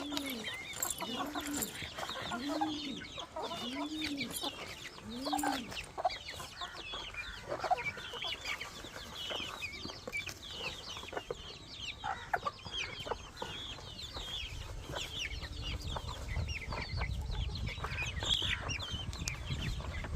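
Chickens clucking, with many short high calls throughout. For the first five seconds a low call repeats about once a second, and a low rumble comes in over the last few seconds.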